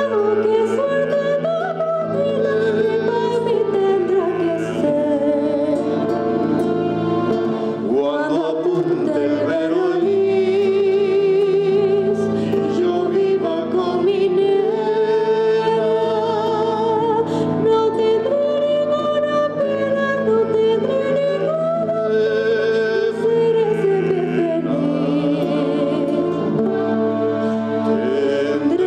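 A woman and a man singing a song together into microphones, with vibrato on the held notes, over a strummed acoustic guitar.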